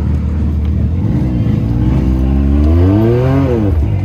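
Off-road vehicle engine running at idle, then revved up and back down once near the end.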